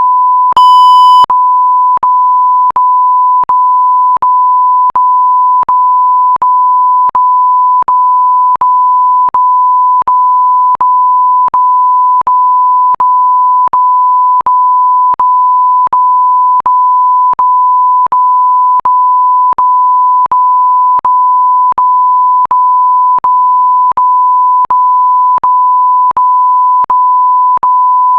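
Electronic beep sound effect: a steady, pure mid-pitched beep that breaks off very briefly about every three-quarters of a second, so it runs almost continuously. About half a second in, a single louder, higher-pitched beep sounds over it for under a second.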